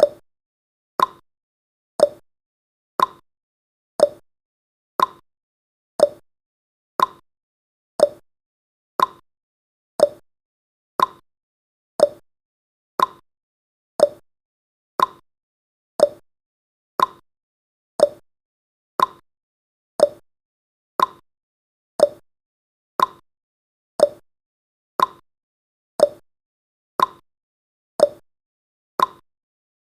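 Countdown timer's clock-tick sound effect, one short, sharp tick every second, each dying away quickly into silence before the next.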